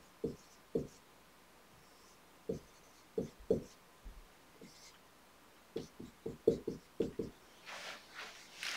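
Dry-erase marker drawing on a whiteboard: a faint run of short, separate taps and strokes as lines and labels are drawn, coming faster in the second half.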